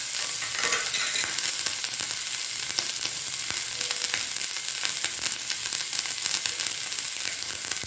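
Crushed coriander seeds, fennel, ginger and chopped green chillies sizzling in hot mustard oil in a frying pan: a steady hiss with many fine crackles.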